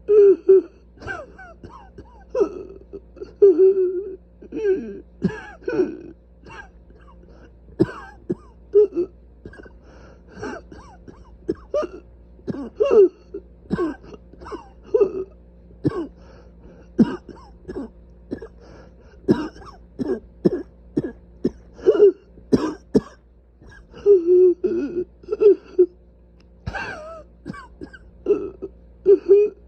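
A person coughing over and over in short, harsh bursts, about one a second, mixed with voiced throat clearing: a cough from airways that the sufferer calls severely inflamed.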